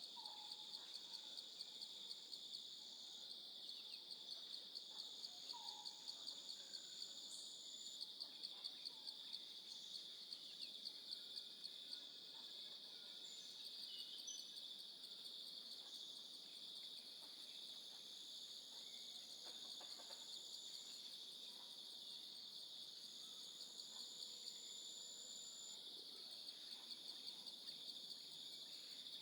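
Crickets singing a steady, high-pitched, unbroken trill, with a few faint bird calls.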